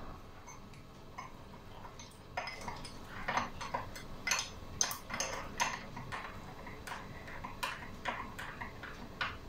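A metal utensil clinking and scraping against a stainless steel pot while eggs are beaten in it, in irregular strokes of about one or two a second that start about two seconds in.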